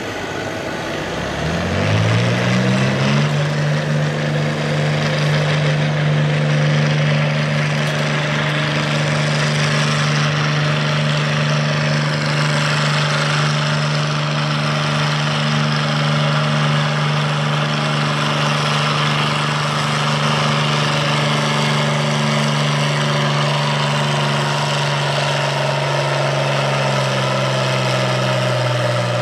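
Heavy diesel engine of a pulling tractor, rising in speed over the first couple of seconds and then running at a steady speed, with a slight change in pitch near the end.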